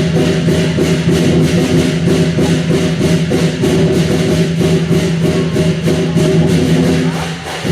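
Lion dance music with fast, steady percussion strokes over a sustained pitched tone, dipping briefly near the end.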